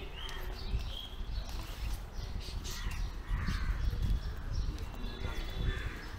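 Street ambience: birds calling at intervals over a steady low rumble.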